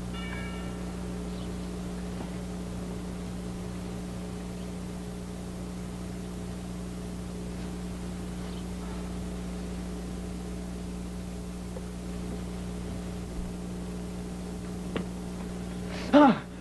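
Steady hum and hiss of an old Super 8 magnetic sound-film track, with no other sound to speak of. A short, loud voice cry breaks in near the end.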